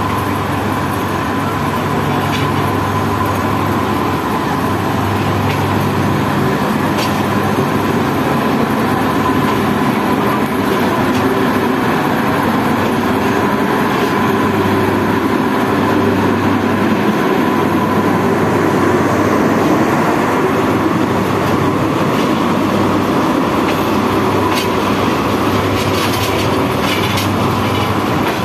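Bangladesh Railway intercity express passenger coaches rolling past close by. It is a steady rumble of wheels on rails, with scattered clicks as the wheels cross rail joints and a thin steady high tone.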